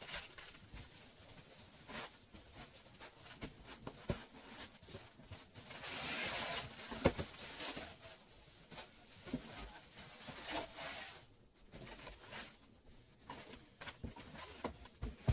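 Plastic wrapping and a cardboard shipping carton rustling and crinkling as packed parts are lifted out, with scattered knocks and taps. The rustling is densest about halfway through, where there is also a sharp knock.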